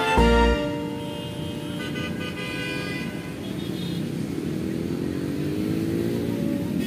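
Street traffic of cars and motorcycles passing, with a short horn-like toot about two seconds in and an engine note slowly rising in pitch from about four seconds in. Background music cuts out just after the start.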